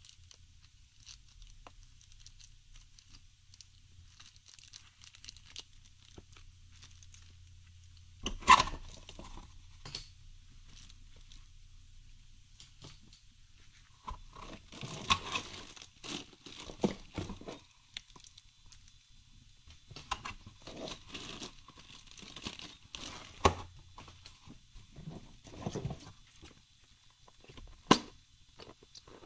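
Packaging being handled: plastic bags crinkling and small cardboard boxes scraping and knocking, in intermittent bursts with several sharp knocks, the loudest about eight seconds in.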